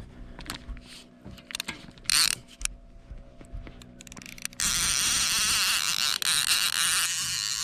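Level-wind line-counter trolling reel being cranked fast to bring in a hooked lake trout: a loud, fast whirring, ratcheting gear rattle that starts about halfway through. Before it, scattered clicks and knocks of the rod and reel being handled over a faint steady low hum.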